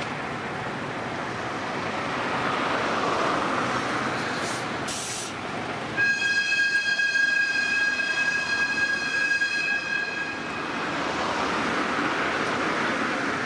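A train running through, with a steady rumble. About six seconds in, a high, steady train horn sounds for roughly four seconds, then the rumble carries on.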